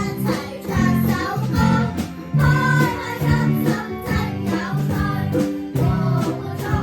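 Music: a song with a sung melody over a steady beat.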